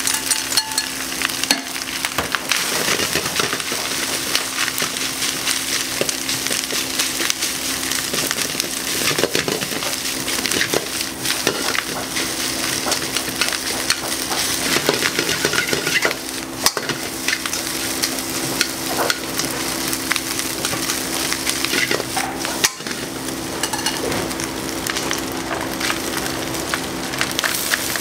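Chopped chashu pork sizzling in a hot wok over a gas burner, with metal tongs scraping and clicking against the pan as it is stirred. A steady low hum runs underneath.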